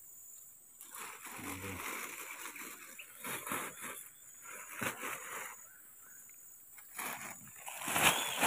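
Rustling and crinkling of a thin plastic bag and fresh fern fronds being stuffed into it, on and off, with a short lull before a louder rustle near the end.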